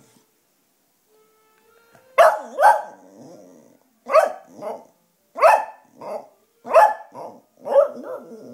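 A cocker spaniel giving short, loud bark-like calls in quick pairs, about five pairs from about two seconds in.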